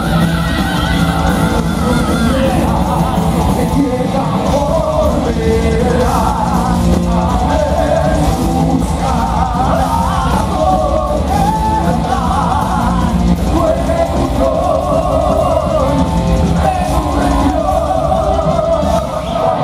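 Live heavy metal band playing: two vocalists singing into microphones over electric guitars and drums, loud and continuous.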